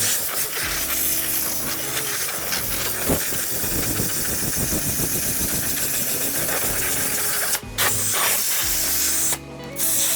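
A loud, steady hiss of spraying air or liquid, cut off briefly twice near the end, over background music.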